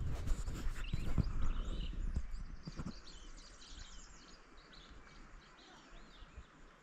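Birds chirping and calling in quick, short notes. In the first three seconds a low rumble and a few sharp knocks sit under them.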